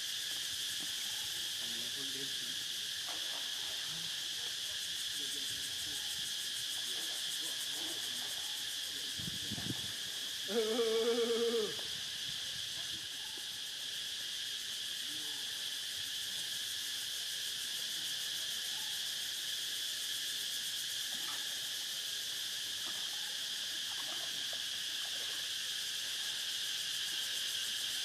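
Insects keep up a steady high drone. About ten seconds in, a wavering pitched call lasts about a second and is the loudest sound.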